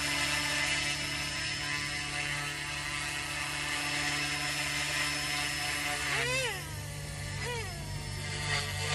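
Goosky S2 micro RC helicopter hovering, its motor and rotor whining at a steady pitch. About six seconds in, the whine swoops up and down in pitch a few times as the helicopter climbs.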